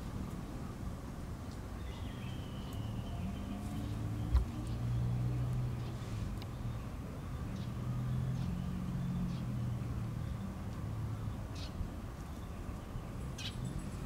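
A steady low engine-like drone, with a single click and a few short high chirps of birds.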